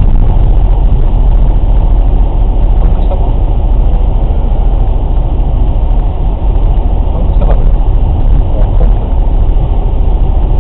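Vehicle running with a loud, steady low rumble, recorded for an abnormal noise coming from a tyre.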